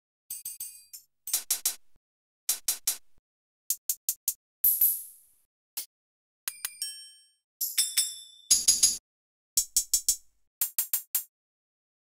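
Short drum and percussion samples play one after another, each cut off by silence. There are clusters of hi-hat ticks, a crash cymbal ringing out about four and a half seconds in, a few pitched pings, and a fuller drum-loop fragment with dholki strokes shortly after the middle.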